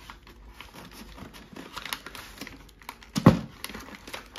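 Paper and tissue wrapping rustling and crinkling as a paper-wrapped gift is handled and opened, in quick irregular crackles. About three seconds in comes one louder, deeper thump.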